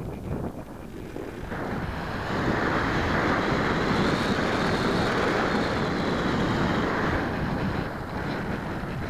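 Wind rushing over the microphone of a camera riding on the nose of a radio-controlled model airplane in flight. It swells about a second and a half in and eases off near the end, with a faint high whine above it.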